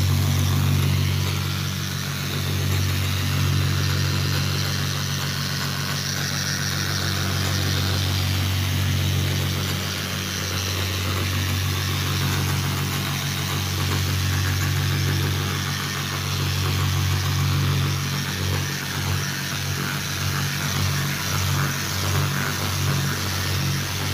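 Milwaukee electric polisher running steadily, its round pad spinning wet against a stone vanity top: a constant motor hum under a hissing swish. This is polishing out a scratch at 800 grit. In the last several seconds the hum turns uneven and pulsing.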